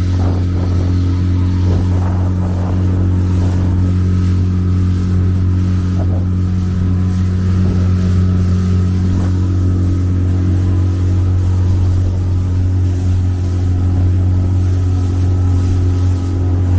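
Motorboat engine running at a steady speed, a constant low drone with a steady hum in it, heard from aboard the boat.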